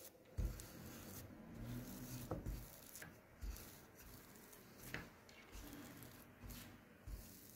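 Small wooden rolling pin pressing and rolling over a soft dough round on a floured board: faint rubbing with irregular light knocks as the pin is set down and pushed in short strokes.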